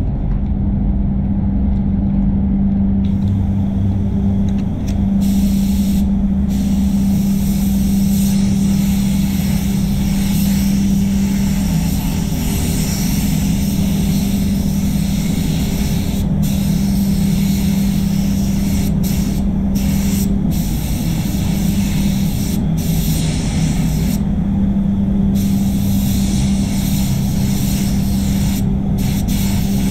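Gravity-feed paint spray gun hissing in long passes, starting about three seconds in and cutting out briefly several times as the trigger is let off. It runs over the steady hum of the spray booth's fans.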